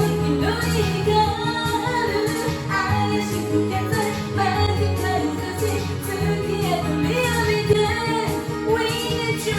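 A woman singing a Japanese pop song along to a karaoke backing track, her voice and the accompaniment continuous throughout.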